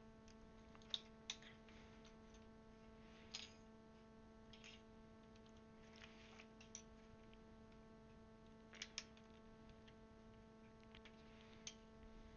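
Faint, scattered clicks of plastic keycaps being handled and pressed onto a mechanical keyboard's Cherry switches, a few at irregular intervals, over a steady low hum.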